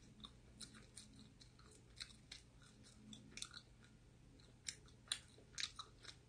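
Soft, wet chewing of a mouthful of sweet potato pizza, a string of short mouth clicks and smacks, a few louder ones about five seconds in.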